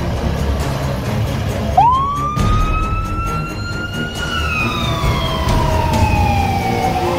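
Fire engine responding, its engine running under a wailing siren. About two seconds in, the siren starts and climbs in pitch. It then falls slowly for about three seconds and begins to rise again near the end.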